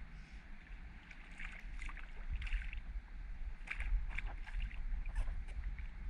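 Irregular splashes and knocks at a kayak as a hooked small snook is brought alongside and handled, over a low wind rumble on the microphone.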